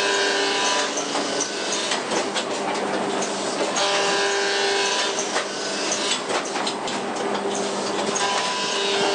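Muller Martini SigmaBinder perfect binding machine running: a steady mechanical clatter and rattle with many small clicks. A whine comes and goes about every four seconds as the machine cycles.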